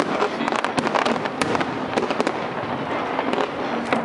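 Aerial fireworks display: many shell bursts go off in quick succession over a continuous crackle.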